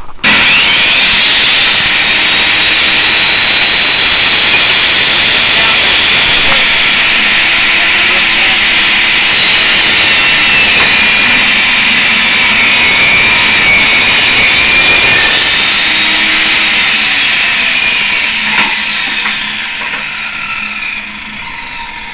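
Delta 10-inch bench saw's motor starting suddenly with a loud whine and running at speed while a board is ripped through the blade, the pitch wavering under the cut. About fifteen seconds in it is switched off and the blade winds down slowly, the sound fading away.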